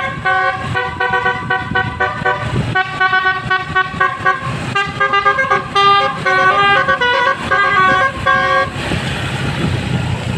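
Indonesian basuri 'telolet' multi-tone bus horn playing a quick tune of stepping notes, several pitches sounding together. It stops about eight and a half seconds in, giving way to a rushing noise.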